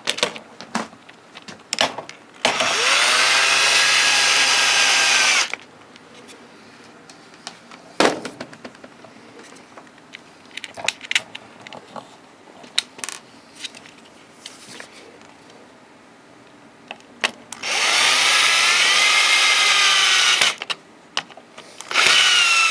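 Power drill running in two runs of about three seconds each, its whine rising as it spins up, then a brief third run near the end. Small clicks and knocks of handling come between the runs.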